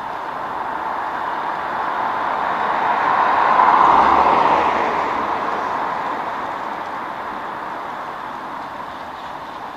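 Street traffic on a wet road: a steady hiss of tyres and engines that swells as a vehicle passes close by, loudest about four seconds in, then fades away.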